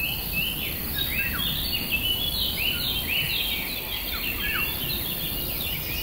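Many small birds chirping at once, a dense run of short rising-and-falling calls, over a steady high insect buzz.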